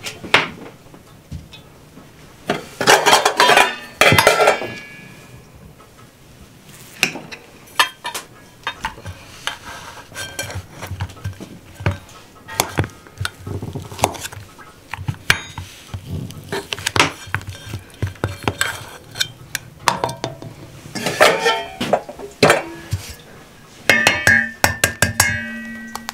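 A table knife clinking and scraping against an aluminium bowl as a block of butter is worked off it into the bowl. There are many sharp metal clinks, and the bowl rings briefly after louder knocks about three seconds in and near the end.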